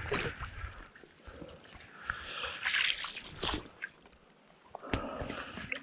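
Shallow seawater sloshing and lapping over a gravel beach, with a few sharp clicks.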